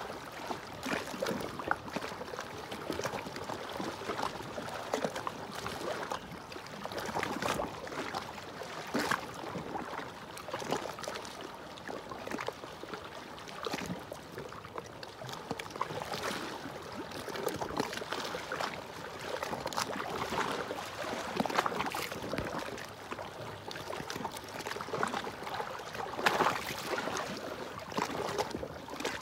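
Small sea waves lapping and splashing against shoreline rocks, an irregular sloshing with no steady rhythm.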